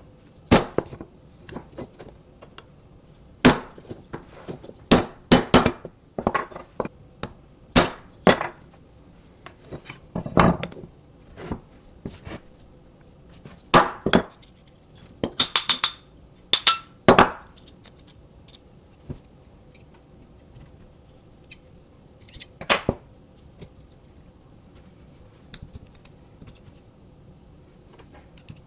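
Metal parts and hand tools knocking and clinking against each other and on a workbench, about fifteen separate strikes in the first two-thirds, a few with a brief metallic ring, then only occasional light clicks.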